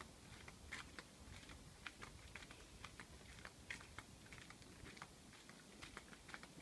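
Near silence with faint, irregular light clicks and taps.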